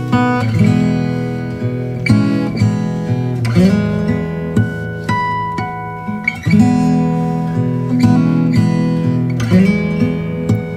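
Background music: acoustic guitar playing, plucked and strummed.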